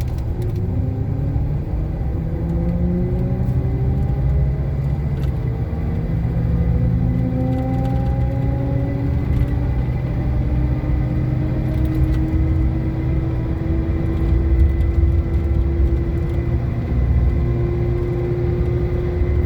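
A 2007 Chevy Silverado's rear differential whining while the truck drives under power, several whining tones rising slowly in pitch with road speed over a steady rumble from engine and road. The differential had run low on gear oil through a leaking pinion seal and still whines after being refilled.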